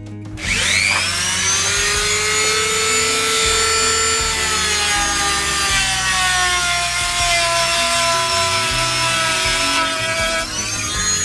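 A high-speed electric power tool starts up about half a second in and works wood with a steady whine. The whine's pitch sags slowly as the tool bites and dips briefly near the end. Background music plays underneath.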